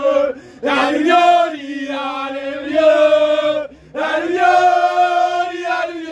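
A small group of men singing a football chant together, unaccompanied, in long sung phrases with two short pauses for breath.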